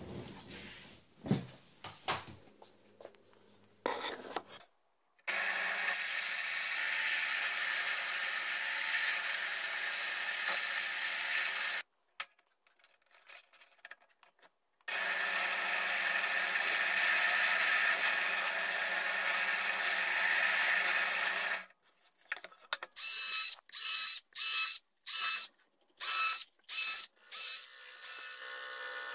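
Small bench drill press motor running steadily with a high whine in two stretches of about six seconds each. Near the end it is switched on and off in a quick series of short bursts. A few light knocks and handling sounds come in the first seconds.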